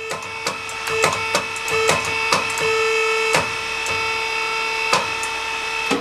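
Hydraulic forging press running under power as the ram presses down: a steady whine with scattered sharp clicks. It cuts off at the end as the new limit switch stops the press at the set thickness.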